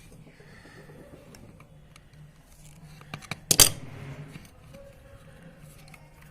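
Light metallic clicks and clinks of parts being handled while a small sewing machine motor is taken apart, with one sharp metal clack about three and a half seconds in.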